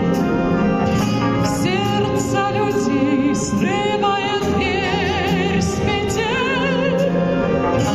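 A woman singing with vibrato over instrumental accompaniment, at a steady, fairly loud level.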